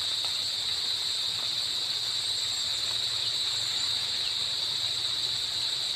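Steady, high-pitched insect chirring of crickets, unbroken and even in level.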